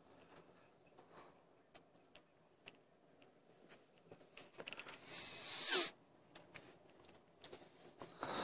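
Quiet car cabin with scattered small clicks and rustles, and a louder rushing noise lasting about a second around five seconds in.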